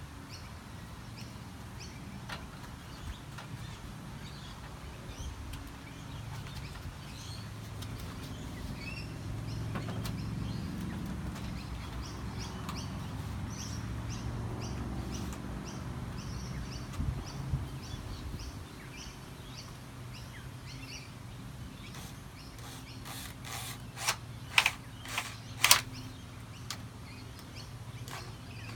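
Birds chirping over a steady low hum, with a run of sharp clicks or knocks a few seconds before the end.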